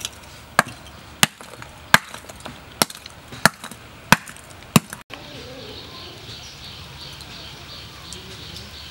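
A hammer breaking lumps of charcoal on the ground: about eight sharp blows, roughly one every two-thirds of a second. After an abrupt cut about five seconds in, steady outdoor background with a fast, high-pitched chirping.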